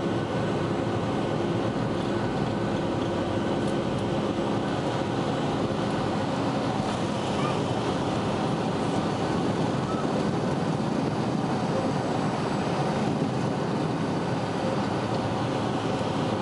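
Boeing 757-200's Rolls-Royce RB211 turbofan engines at takeoff thrust, heard from inside the cabin over the wing: a steady, loud roar with a held hum in it, through the takeoff roll and the lift-off.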